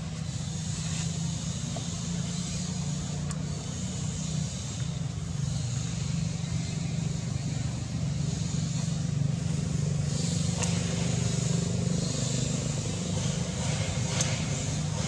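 Steady low engine hum, as of a motor vehicle running, with a steady high hiss above it and a few faint clicks.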